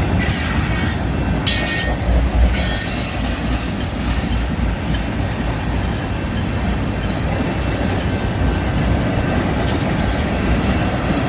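Freight cars of a mixed freight train rolling past: a steady rumble of steel wheels on rail, with short bursts of high-pitched wheel squeal, several in the first four seconds and one more near the end.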